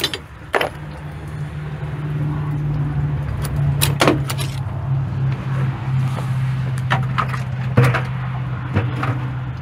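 A wrench clinks and knocks against metal several times while loosening the thermostat-housing bolts on a John Deere 310G backhoe engine. Underneath is a steady low hum that grows louder over the first two seconds.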